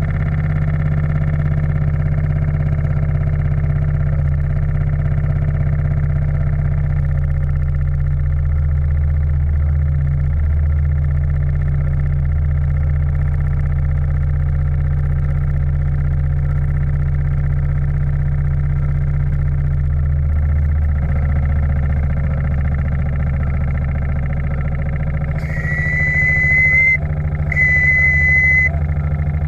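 A steam launch's steam plant running steadily with a low drone. Near the end a steam whistle gives two short, high blasts, the first rising slightly in pitch as it starts.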